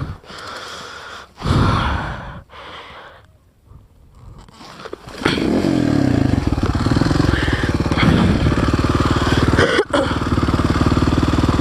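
Kawasaki KLX300R dirt bike's single-cylinder four-stroke engine being kick-started: a few kicks, then it catches about five seconds in and keeps running with a steady, fast beat, dipping for an instant near the end.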